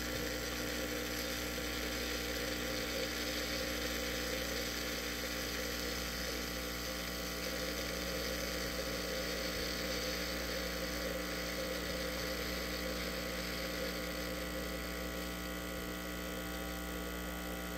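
illy Y3.2 iperEspresso capsule machine running as it extracts a large cup: its pump gives a steady mechanical noise with a constant tone, easing slightly near the end.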